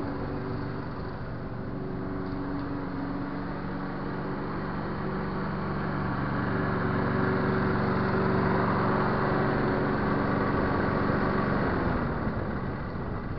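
Briggs & Stratton four-stroke engine of a Sabo 43-4 Turbostar rotary mower running at a steady speed while the mower vacuums up loose thatch, getting louder as it comes close. Near the end the engine is shut off and winds down.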